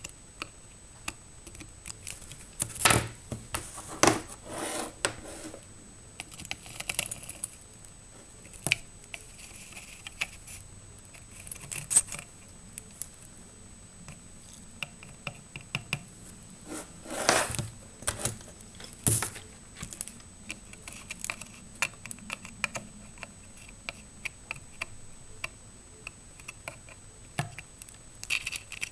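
Irregular light clicks, taps and short scrapes of a soldering iron tip against the pins of a surface-mount chip and the circuit board, as the chip is worked loose with ChipQuik low-melt solder.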